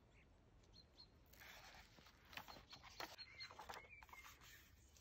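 Near silence: faint rustling and small scattered clicks, with a few short, faint high chirps.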